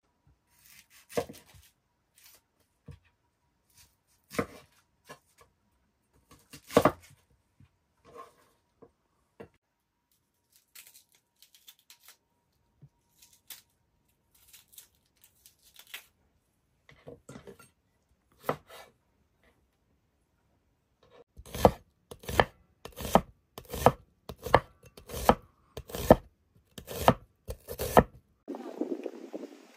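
Knife chopping on a cutting board: scattered single cuts at first, then a steady run of chops at about two a second over the last third, with a short rustling noise at the very end.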